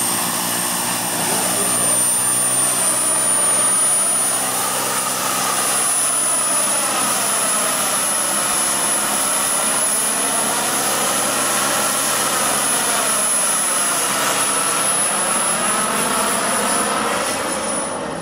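A JetCat PHT2 turbine in a model Alouette II SA 318 C helicopter runs with a high, steady whine that rises slightly in pitch over the first few seconds as the model lifts off. Under the whine, the rotor's rush sweeps up and down in waves as the helicopter flies around.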